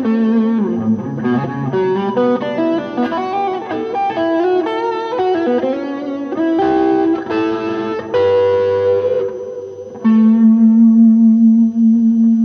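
Electric guitar played through a Kingsley Peasant pedal into a Lazy J 40 tweed-style amp with light overdrive, noodling single-note lines and chords. It ends on one low note held for the last couple of seconds.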